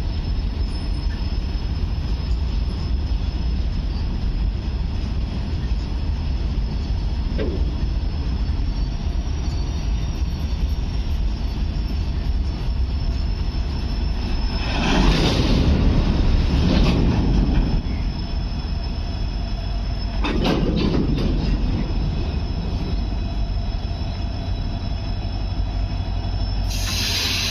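Indian Railways freight train approaching slowly: a steady low rumble from the locomotive and wagons, with a thin, high wheel squeal held throughout. About halfway through there is a louder swell lasting two or three seconds, and a smaller one a few seconds later.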